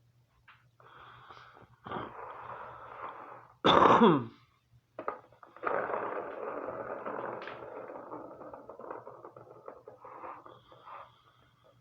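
Scratching and scraping in a cat's litter box, a scratchy rustle with small clicks that runs on and off. About four seconds in comes a short, loud sound that falls steeply in pitch.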